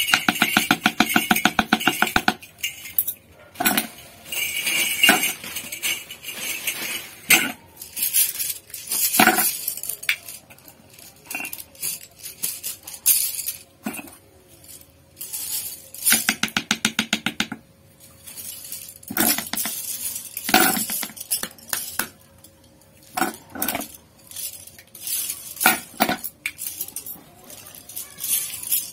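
Metal brush ferrules clinking and rattling as they are handled, in irregular bursts with quiet gaps. Two stretches of fast, even rattling, one at the start and one past the middle.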